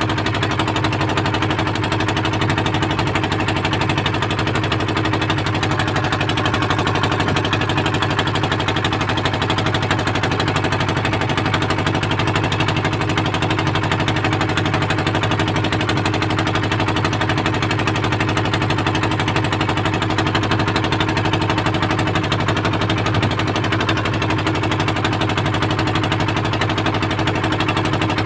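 A boat's engine running steadily at constant speed, with a rapid, even beat.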